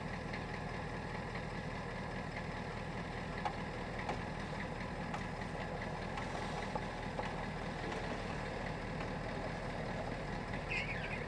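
Tow truck's engine idling steadily, with a few light clicks over it.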